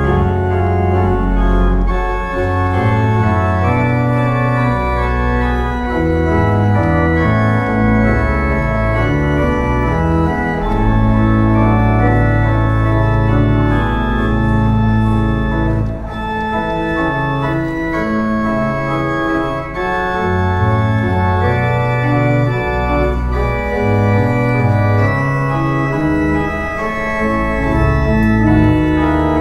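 Organ playing a slow passage of sustained chords over deep bass notes that change every second or so, with one long held bass note from about ten to sixteen seconds in.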